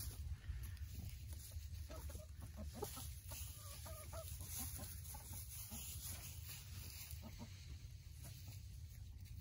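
Backyard hens clucking softly as they forage in straw bedding, a scattering of short calls over a low steady rumble.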